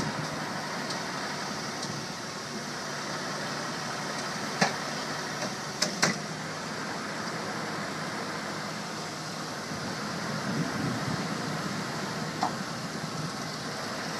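Cars passing close by on the road, a steady rush of tyres and engines, with a few sharp clicks about five and six seconds in.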